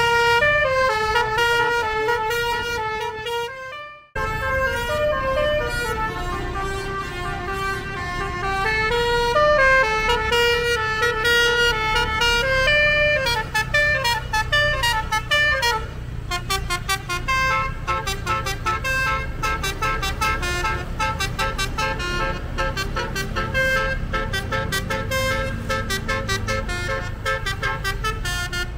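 Bus basuri horn, a multi-note musical air horn, playing a melody note by note over the low rumble of the bus; it cuts out briefly about four seconds in, and in the second half the notes come as quick repeated toots.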